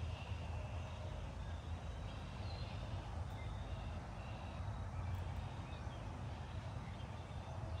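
Wind buffeting the microphone as a steady low rumble, with short, high bird chirps repeating here and there.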